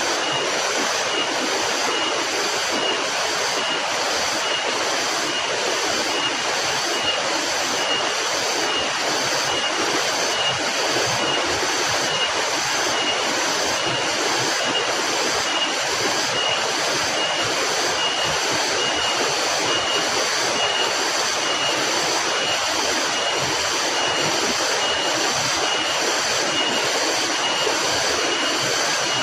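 Steady rushing noise with a high, evenly pulsing trill, about one to two pulses a second.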